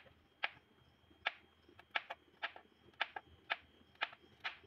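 Small kitchen knife slicing a green chilli on a plastic cutting board: a sharp tap each time the blade goes through and meets the board, about two a second, slightly uneven.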